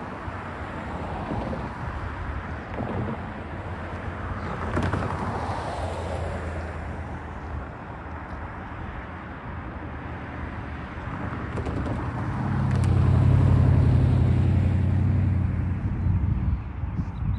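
Road traffic: cars passing one after another. A louder engine with a low, steady pitched hum goes by from about twelve seconds in and is the loudest part.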